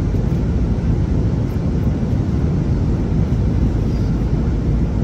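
Steady, deep cabin noise of a jet airliner in cruise: the even rumble of engines and airflow.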